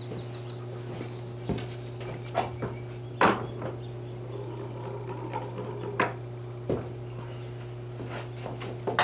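A handful of short, sharp knocks and clicks from someone handling a homemade PVC air cannon, the loudest about three seconds in, over a steady low hum.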